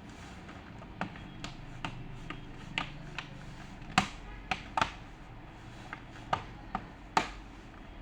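Irregular sharp clicks and taps, about fifteen of them, the loudest about four seconds in and again near the end, over a low steady hum.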